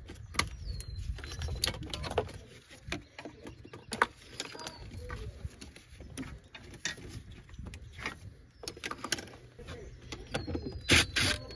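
Irregular clicks, taps and rattles of plastic wiring-harness clips being pried loose with a pick tool and of tools knocking against the plastic intake manifold, loudest in a quick cluster near the end. A bird chirps faintly now and then.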